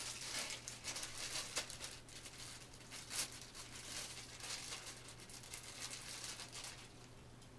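Thin clear plastic packaging bag crinkling and rustling as it is handled and opened, in irregular bursts with a louder crinkle about three seconds in, quieter toward the end.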